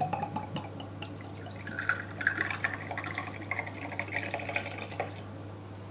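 Spirit poured from a glass bottle into a small crystal shot glass: a thin trickle for about three and a half seconds, its pitch creeping up as the glass fills, then it stops. A few light glass clicks come just before the pour.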